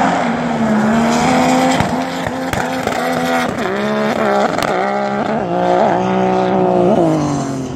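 Racing jet ski engine running at high revs, its pitch dipping and recovering several times during the run, then falling away near the end.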